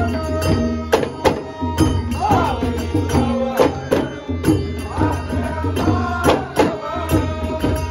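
Ghumat clay-pot drums beaten together by a group in a quick, steady beat, with an elderly man singing a Shimga folk song over a harmonium.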